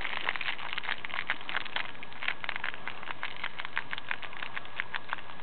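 Brussels Griffon dogs sniffing at each other's faces, a run of quick, irregular short sniffs.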